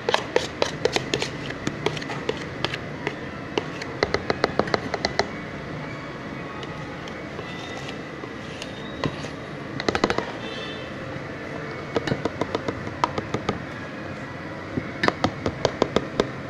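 Bursts of rapid sharp clicking that come and go about five times, over a steady background hiss.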